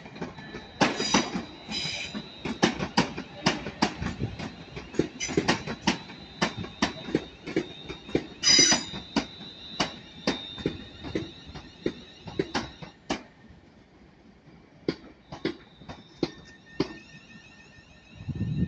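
A London Northwestern Railway Class 350 Desiro electric multiple unit rolling slowly over pointwork, its wheels clicking over rail joints about two to three times a second. A steady high whine runs alongside and stops about two-thirds of the way through, and the clicks thin out towards the end.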